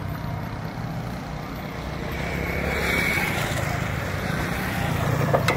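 Steady low rumble of road traffic, getting louder about halfway through as a vehicle goes by.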